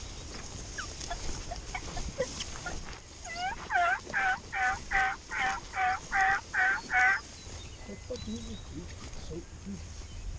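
A series of about nine turkey yelps, evenly spaced at roughly two and a half a second, starting about three seconds in and lasting about four seconds.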